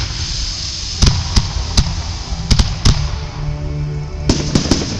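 Aerial fireworks shells bursting with sharp bangs, one every half second or so from about a second in, then a quick cluster near the end. Music plays underneath.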